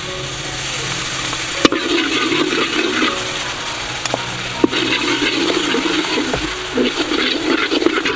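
Sauce poured into a hot steel wok, sizzling and bubbling as it hits the metal. Two sharp clinks come about one and a half and four and a half seconds in.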